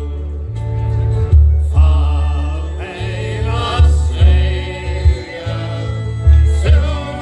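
Irish folk band playing live through a PA: strummed acoustic guitars and fiddle under a heavy low note on each beat, with several men's voices singing together from about two seconds in.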